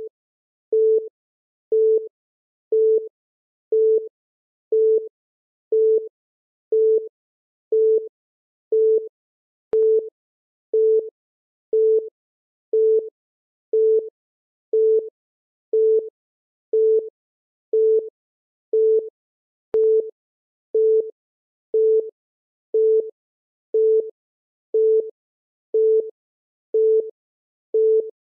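Electronic countdown timer beeping once a second: a short, mid-pitched single-tone beep at an even pace, with faint clicks about every ten seconds.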